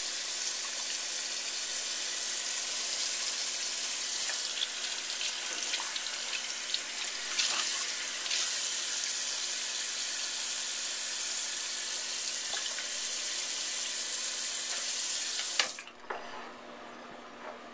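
Bathroom sink faucet running steadily into the basin, with a few small knocks and splashes, then shut off suddenly with a click near the end.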